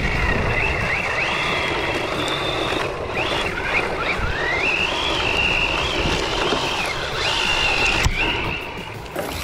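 Electric motor and drivetrain of a 1/8-scale RC rally car (Carisma M48S, 550-size brushless motor on 3S) whining, the pitch rising and falling repeatedly with the throttle as it slides on loose dirt, over a steady rough hiss of tyres and gravel. A single sharp knock about eight seconds in.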